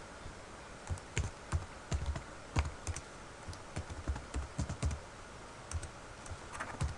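Typing on a computer keyboard: irregular key clicks in short runs, with brief pauses between them.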